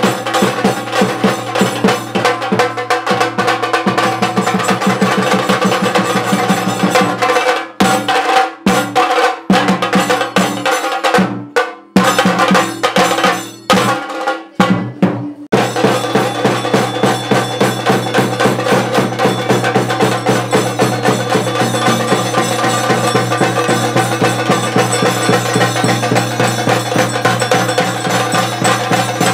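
A group of chenda drums, tall rope-laced barrel drums, played fast with sticks in a dense rolling beat. For a stretch in the middle the rolling breaks into separate, spaced strokes with short gaps, then the fast beat picks up again.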